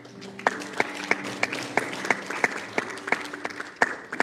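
Congregation applauding, with one person's loud, distinct claps standing out about three times a second over the general clapping.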